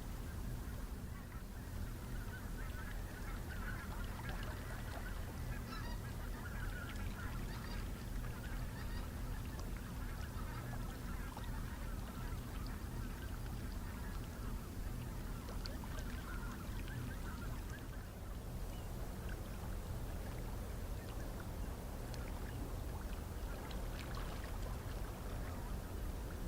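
A flock of geese honking and chattering over the steady low drone of a passing inland cargo ship's diesel engine.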